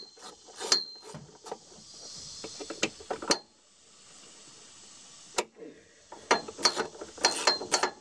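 Hand ratchet wrench clicking as bolts are worked loose: short runs of sharp metallic clicks, some ringing briefly, with a quieter gap midway and a quicker run of clicks near the end.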